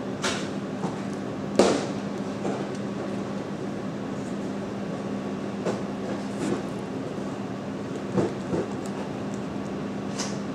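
Steady indoor room hum with a few scattered short clicks and light knocks.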